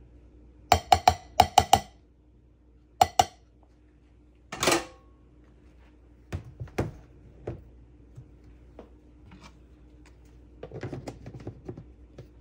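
A plastic measuring cup is tapped against a glass mixing bowl to knock out the last of the flour, giving a quick run of sharp, ringing taps about a second in and two more near three seconds. A heavier knock and lighter clinks follow as a metal spoon is set into the bowl.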